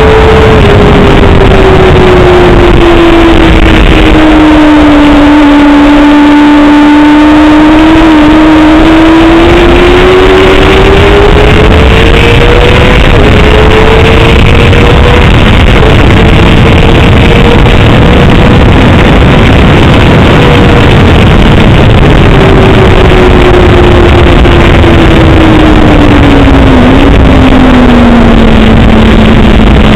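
Honda sport motorcycle engine at speed on track: its note dips, climbs as the bike accelerates with two brief dips at upshifts, holds high, then falls steadily as the bike slows for a corner. Constant rushing wind and road noise run under it, and the recording is very loud.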